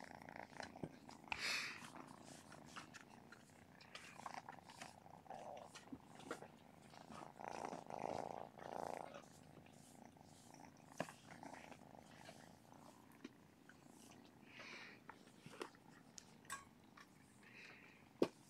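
Domestic cat purring softly, close by, with scattered small clicks and rustles of movement.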